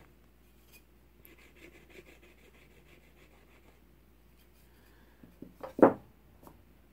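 Faint rubbing and scratching of wood glue being squeezed from a plastic bottle onto a pine star piece. Near the end comes a short run of light wooden knocks with one loud, sharp knock as the piece is set into place on the wooden workbench.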